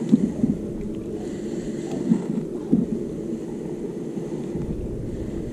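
Wind-driven chop lapping against a small fishing boat's hull, with wind on the microphone. There are a few short slaps of water: near the start, about two seconds in, and again about three seconds in.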